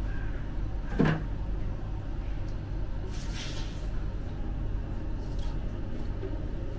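Handling sounds from stacking raw meat slices onto a metal vertical döner skewer: a single sharp knock about a second in and a short swish around three seconds, over a steady low hum.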